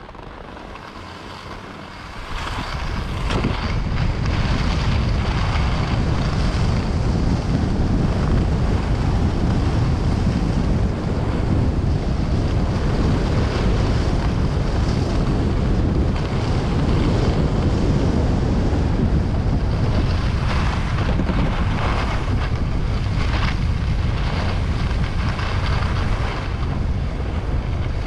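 Strong wind buffeting the microphone, with the steady rushing hiss of skis sliding over snow. It swells up about two seconds in and then holds steady.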